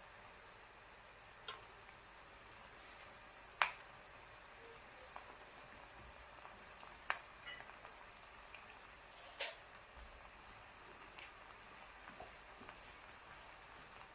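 Chopped onion, green chilli and garlic frying in oil in a pan, a steady faint sizzle. About five short clicks of a utensil against the pan are scattered through it.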